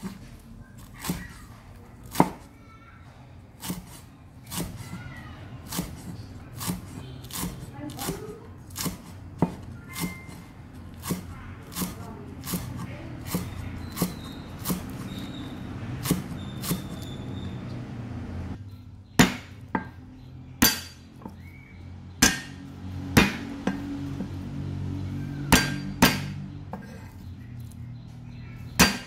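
Cleaver chopping green turmeric shoots on a round wooden chopping block: a steady knock a little more than once a second, with louder, more widely spaced blows in the last third.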